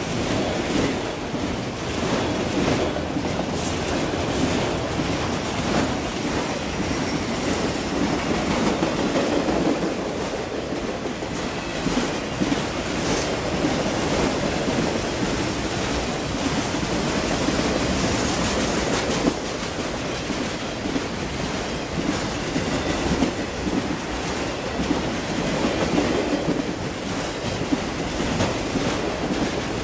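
Autorack freight train passing close by: a steady rumble of steel wheels on the rails with a rhythmic clatter over the joints.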